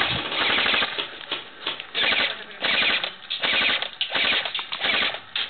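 Airsoft electric rifle firing short full-auto bursts: rapid mechanical clatter, about six or seven bursts in a row.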